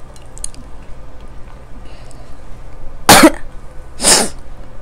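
A woman coughs twice, about a second apart, into her hand.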